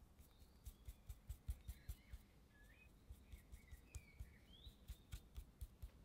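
A paintbrush dabbing and stroking thick acrylic paint onto a primed wooden block, as a quiet run of soft, irregular taps about three to four a second. Faint bird chirps sound in the background.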